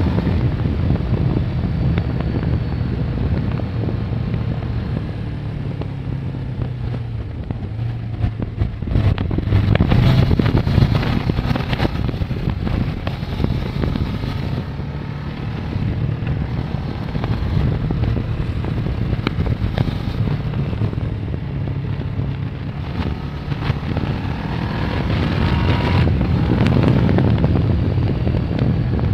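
Kawasaki ER-6n's 649 cc parallel-twin engine running while the motorcycle is ridden, its pitch rising and falling with the throttle. It grows louder about a third of the way in and again near the end as the revs climb.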